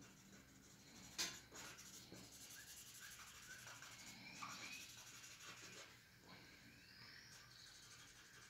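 Faint scratching and rubbing of a paper blending stump worked over charcoal on drawing paper, blending the shading, with one sharp tap about a second in.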